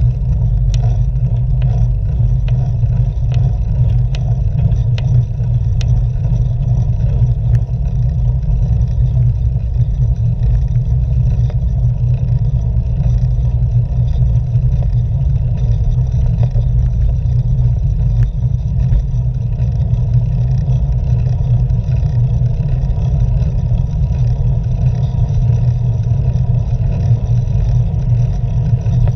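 Steady low wind rumble on the microphone of a camera on a moving road bicycle, mixed with tyre and road noise. A few light clicks come in the first several seconds.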